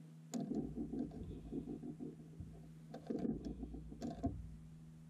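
Fishing reel being cranked in two spells, a fast whirring tick as line is wound in on a hooked channel catfish, over a steady low hum.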